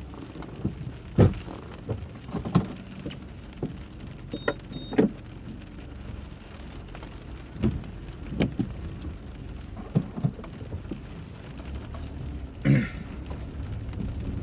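Rain falling, with heavy drops tapping irregularly on a nearby surface.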